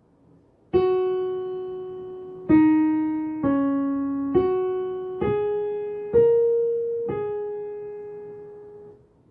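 Piano playing two short black-key patterns back to back: a slow line of single notes, one at a time. The last note is held and left to fade out.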